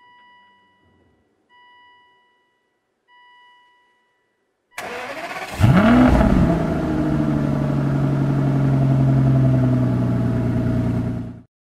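A 2005 Aston Martin DB9's dashboard chime sounds three times, about a second and a half apart. Its 5.9-litre V12 then cranks and catches with a quick rev flare that rises and falls, before settling into a steady fast idle. The sound cuts off suddenly near the end.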